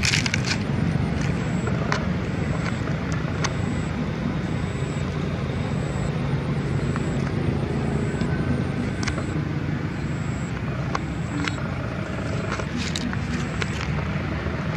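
A steady low rumble runs throughout, over which a faint high-pitched chirp repeats about every three-quarters of a second, with a few faint scattered clicks.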